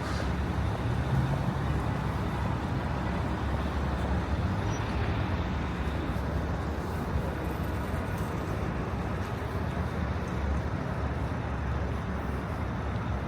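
Steady city street traffic noise: cars and buses running along a busy avenue, heard as a continuous low rumble.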